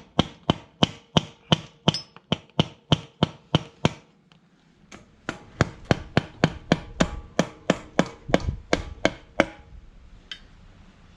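Rhythmic sharp knocking, about four strikes a second, in two runs with a pause of about a second between them.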